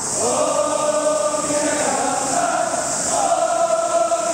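Large crowd of football supporters singing a chant together in unison, with long held notes.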